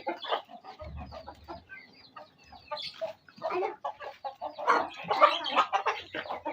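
Chickens clucking, a quick run of many short calls that grows louder and busier in the second half.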